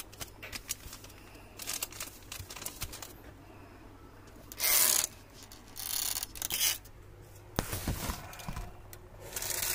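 Plastic seasoning sachets rustling and crinkling as they are picked up and laid out, in several short bursts with small clicks between, the loudest about five seconds in.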